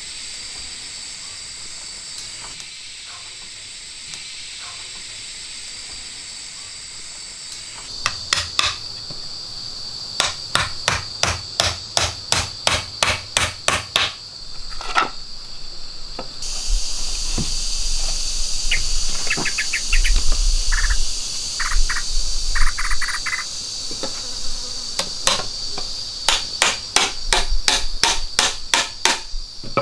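Steady high-pitched drone of jungle insects, with runs of sharp, evenly spaced strikes of a tool on wood at about two or three a second. The strikes start about a quarter of the way in, break off in the middle and start again near the end.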